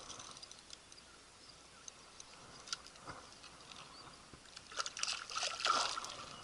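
Water splashing and trickling at the edge of the bank, with a dense run of clicks and splashes about five seconds in.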